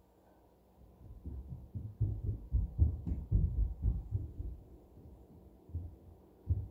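Low, muffled thumps coming down through the ceiling from the apartment upstairs: a quick, uneven run of them for a few seconds, then two single thumps near the end.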